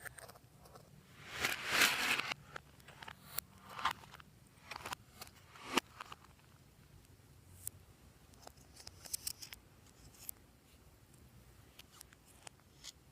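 Slime being pressed and mixed by hand: a longer squishy, crinkly stretch about a second and a half in, then scattered sticky pops and clicks.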